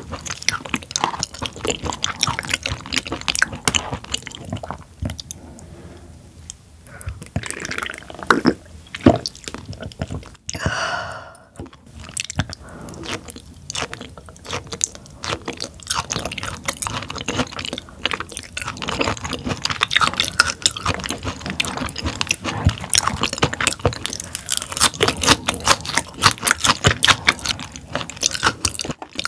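Close-miked chewing of raw tuna sashimi: a constant run of soft wet mouth clicks and smacks. A short pitched sound breaks in about eleven seconds in.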